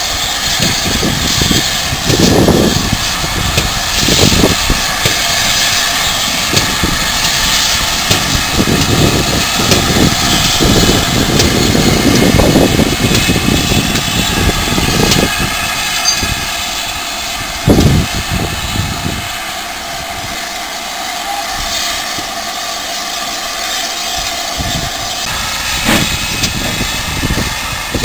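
GWR steam locomotives blowing off steam: a loud, steady hiss with irregular low thumps underneath, which ease off about two-thirds of the way through.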